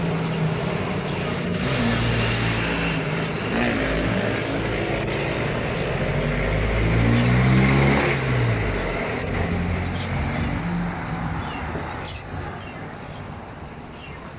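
Motor vehicle engine running, its pitch rising and falling, loudest about seven to eight seconds in and then fading away.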